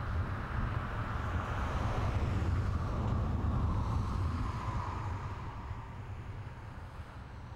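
A steady low rumble with a hiss above it, fading out gradually over the last couple of seconds.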